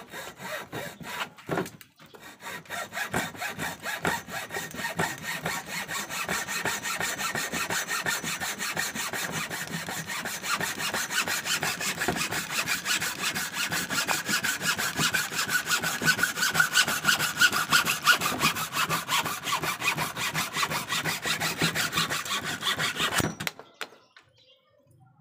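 A restored 19th-century hacksaw cutting through a clamped strip of old wood with quick, even back-and-forth strokes. The sawing stops suddenly shortly before the end.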